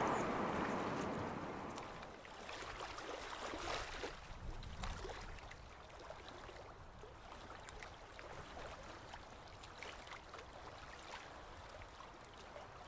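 A passing train's noise fading out over the first couple of seconds, then faint water ambience: a soft hiss of lapping water with small splashes and ticks.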